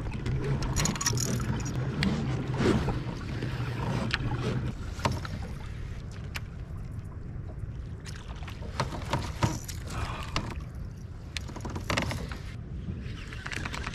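Kayak on the water: water noise around the hull, a low steady hum for the first few seconds, then scattered sharp knocks and clicks of gear against the kayak.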